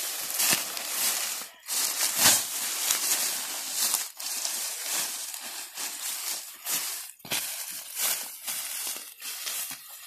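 Dry sugarcane leaves and cut cane tops rustling and crunching, with irregular crackles as they are handled and walked over.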